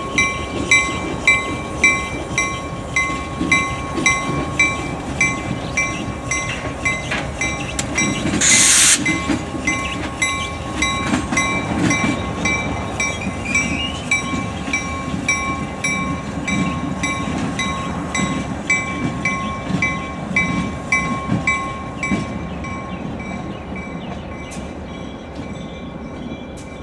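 Diesel locomotive's bell ringing steadily, about three strikes every two seconds, over the rumble of slowly moving locomotives. There is a short loud hiss of air about eight seconds in. The bell fades out near the end.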